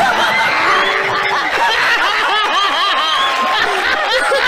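A group of people laughing loudly and heartily together, several voices overlapping in repeated bursts of laughter.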